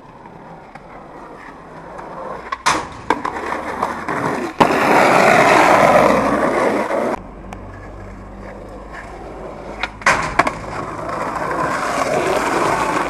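Skateboard wheels rolling over street pavement, the rolling loudest and steadiest from about four and a half to seven seconds in. A few sharp clacks of the board break through, around three, four and a half and ten seconds in.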